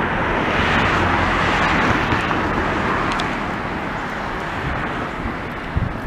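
Steady rushing noise of a passing vehicle, loudest a second or two in and then slowly fading.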